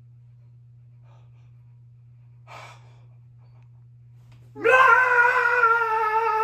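A child lets out one long, loud yell starting about four and a half seconds in, its pitch sagging slightly as it goes, after a short breath in the quiet before it.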